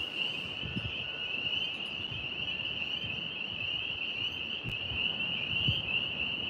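A steady, high-pitched trilling night chorus of calling animals, with low gusts of wind buffeting the microphone now and then.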